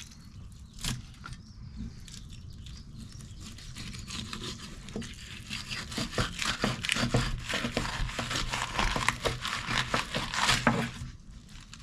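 Crinkling, rustling handling noise made of many small clicks, building up a few seconds in and stopping shortly before the end.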